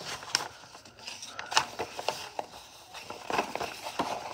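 A large, stiff tan sheet being handled, flipped and bent by hand on a desk, rustling with a few sharp crackles and snaps at irregular moments.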